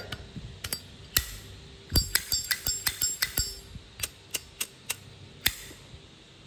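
Metal clicks and clinks from a brass Zippo lighter being handled, its case and lid knocking and snapping. A quick run of about ten clinks comes about two seconds in, some ringing briefly, with scattered single clicks before and after.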